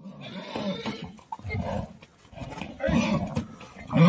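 Horses neighing: about four short, rough calls in a row.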